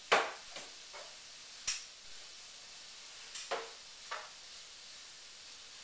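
A small plastic container with a red lid knocked and set down on a wooden rail: a series of sharp taps, the loudest at the very start, then a few more spread over the next four seconds, over a steady faint hiss.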